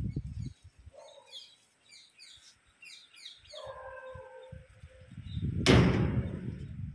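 Small birds chirping outdoors: a quick run of short high calls in the middle, then steadier whistled notes. Low thumps come at the start and end, and a loud, brief rush of noise comes near the end.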